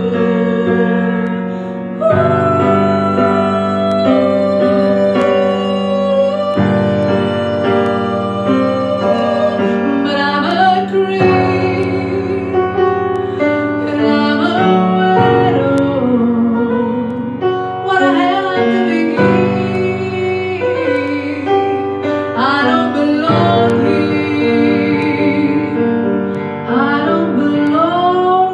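A woman singing with vibrato, accompanied by piano chords that change every few seconds.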